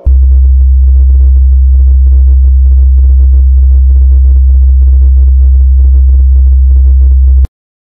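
Psytrance track played loud on synthesizers. A steady, heavy bass drone runs under a fast pulsing synth pattern, then the music cuts off suddenly near the end.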